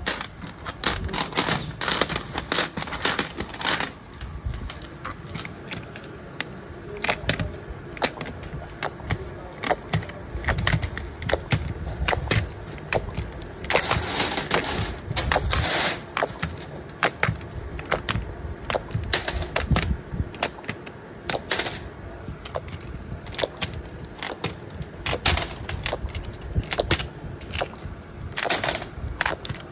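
Quick, irregular clicking and clattering of small hard parts: nail polish brush caps and bottles being handled on the production line.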